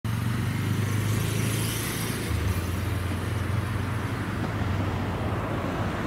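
JR Kyushu KiHa 220 diesel railcar approaching with its diesel engine running, a steady low drone whose note shifts slightly a little over two seconds in.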